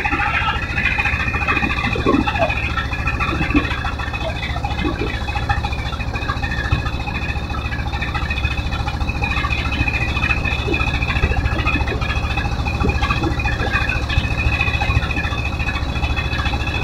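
A wooden river boat's engine running steadily with a fast, even low pulse, with water rushing and splashing along the hull.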